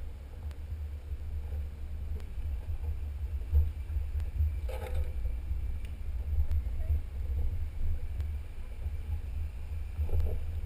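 Low, uneven rumble of a Jeep driving slowly along a rough dirt trail, with a brief higher-pitched sound about five seconds in.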